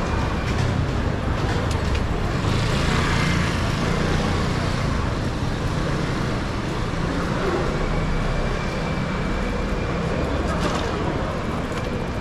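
City road traffic: a steady hum of engines and tyres, swelling louder for a couple of seconds from about two seconds in, as a vehicle passes.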